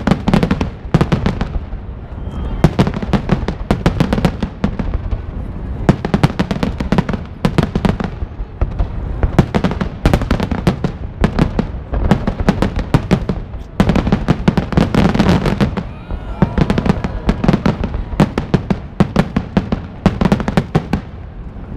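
Aerial fireworks display: a dense barrage of shells bursting, several loud bangs a second with crackling, in clusters broken by short lulls.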